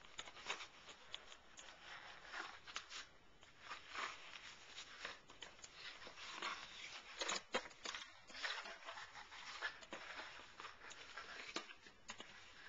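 Sheets of white cardboard being handled and folded along their creases: irregular rustling and scraping of card, with scattered light clicks.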